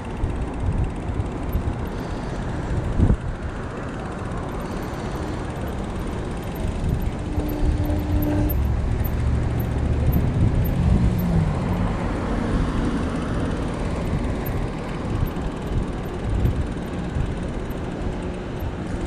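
Riding noise from a bicycle ride picked up by a camera on the rider: steady wind on the microphone and road rumble, growing louder in the middle.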